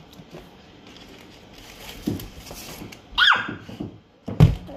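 Knocks and thumps from a plastic ice cream tub being lifted off a counter and carried away. About three seconds in there is a short squeal that falls steeply in pitch, and near the end a heavy thump.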